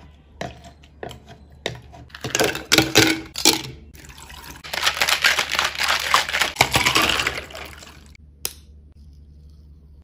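A stainless steel muddler knocks and crushes lychee pulp in a plastic shaker cup, with separate knocks at first and then a louder, quicker cluster. The cup is then shaken hard for about three seconds, its contents sloshing and rattling, and a single sharp click follows near the end.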